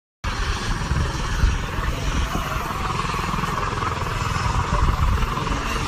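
Helicopter flying, its rotor beating low and fast under a steady higher hum.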